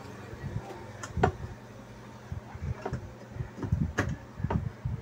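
Scattered sharp clicks and light knocks as the small tactile push buttons on a home theatre's front display circuit board are pressed and the board is handled, over a faint steady low hum.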